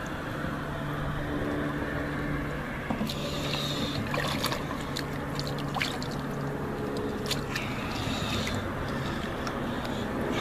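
Shallow seawater splashing and trickling around a large Goliath grouper and the legs of people wading beside it, in scattered short bursts as the fish shifts. A steady low hum runs underneath.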